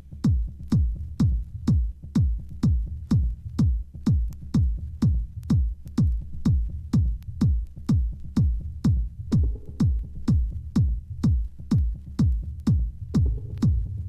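Progressive house/trance music: a steady four-on-the-floor electronic kick drum at about two beats a second over a low bassline, with little else above it.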